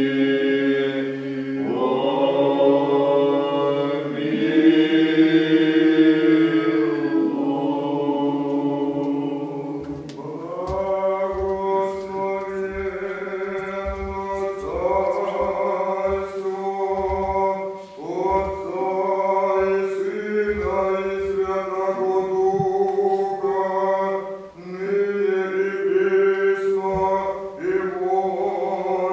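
Church choir singing Old Believer liturgical chant in long drawn-out phrases, with a low note held beneath the melody for about the first ten seconds.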